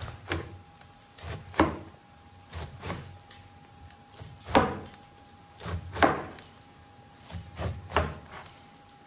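A knife chopping frozen cabbage, a series of crisp crunching cuts roughly one a second.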